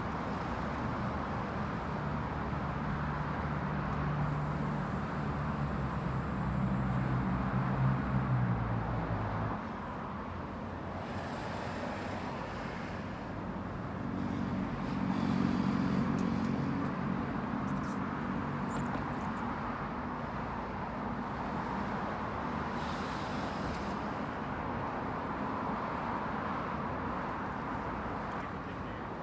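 Steady traffic noise with a low engine hum that swells twice, once early for several seconds and again around the middle.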